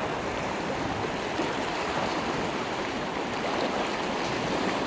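A shallow, rocky river running fast over stones in a riffle, a steady rushing of water heard close up.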